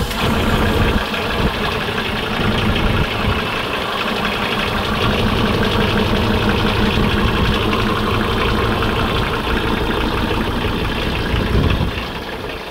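Nanni five-cylinder 85 hp marine diesel idling steadily just after a cold start, loud and even. Near the end the sound drops in level.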